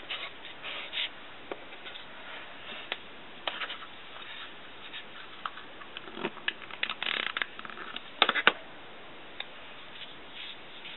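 Paper stickers and notebook pages being handled and pressed down by hand: scattered soft paper rustles and light taps, with a busier, louder patch of rustling about seven to eight seconds in.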